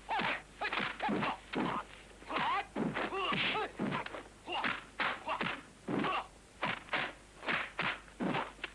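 Kung fu film fight sound effects: a rapid run of punch and kick impacts and whooshes, about two a second, mixed with the fighters' short shouts.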